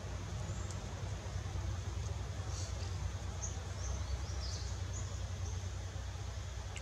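Outdoor ambience: a steady low rumble with short, high-pitched chirps scattered through it every second or so.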